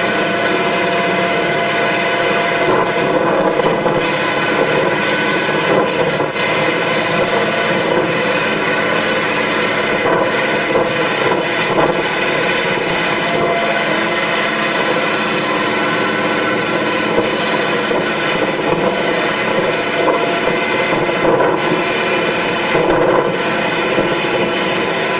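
Heavy farm machine's engine running steadily: a continuous drone with a constant hum over it.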